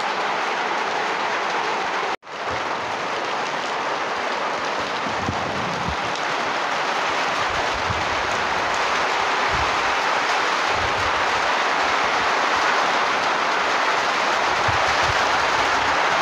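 Heavy rain falling steadily, a dense even hiss, broken by a sudden brief gap about two seconds in.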